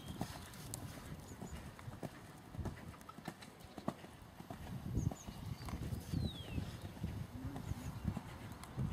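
Hoofbeats of a horse cantering under saddle on a sand arena, a run of low thuds.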